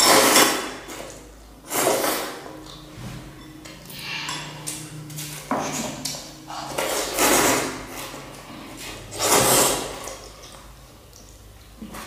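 A person slurping and sucking in instant noodles and broth, in about five loud, noisy slurps a couple of seconds apart, with light clinks of a spoon against a ceramic bowl.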